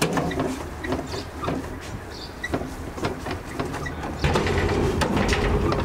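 Bare hands kneading and squeezing a thick bulgur and pepper-paste çiğ köfte mixture on a metal tray, about one squishing stroke every half second; the paste is late in a long kneading, with the bulgur worked smooth into it. About four seconds in, a louder low steady noise joins.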